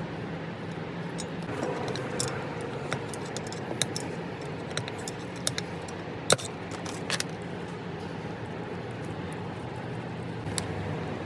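Scattered light metallic clicks and clinks of small metal parts being handled, over a steady low hum. The sharpest click comes a little past halfway.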